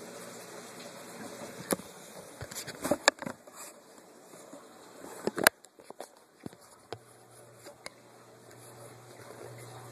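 Steady aquarium water noise broken by several sharp clicks and knocks, the loudest about three and five and a half seconds in.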